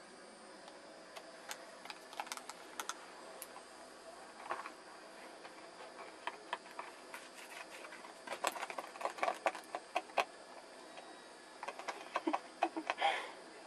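Kittens scrambling about in a basket: bursts of rapid small clicks and crackles from their claws and the basket, busiest about eight to ten seconds in and again near the end, over a steady hiss.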